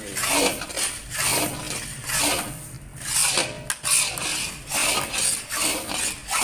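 A flat metal spatula scraping and stirring dry, grainy milk-halwa (mawa) mixture against a black iron karahi, with a rough scrape about twice a second. The milk has cooked down to the grainy stage.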